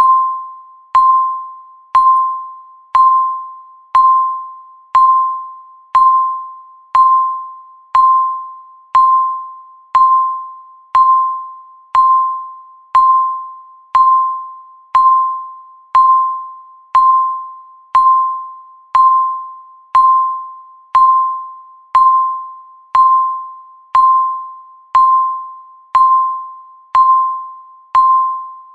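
Countdown timer beep: a short, clear electronic tone struck once every second, each one sharp at the start and fading quickly, marking the seconds as the timer counts down.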